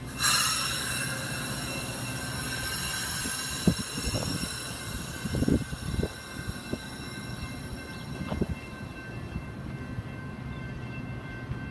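Metra diesel commuter train with bilevel cars right beside the platform. A sudden loud hiss of air comes just after the start, and steady high squealing tones ring over a low rumble, with a few clunks around the middle.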